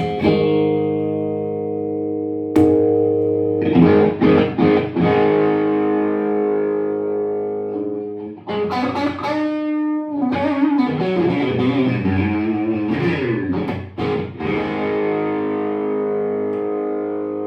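Electric guitar, a custom Stratocaster, played through an amp with light distortion. A chord rings out and another is struck, followed by a quick run of picked notes. Near the middle come notes that bend and waver in pitch, and a final chord is left ringing.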